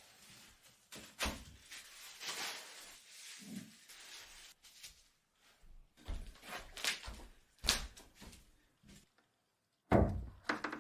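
Irregular knocks, scrapes and thuds, with pauses between them; the loudest is a thump near the end.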